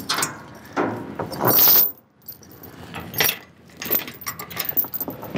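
Steel tie-down chain rattling and clinking in several separate bursts as it is handled, the loudest about a second and a half in.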